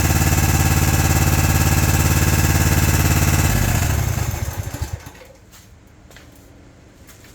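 Briggs & Stratton Intek V-twin engine running steadily on its first test run after an oil pan gasket repair, then switched off about three and a half seconds in and spinning down to a stop. A few faint clicks follow.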